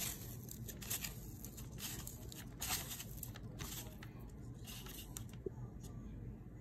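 Fingers crushing slippery, paint-coated Orbeez water beads against a plate: a run of short, uneven crackles that thins out in the last couple of seconds.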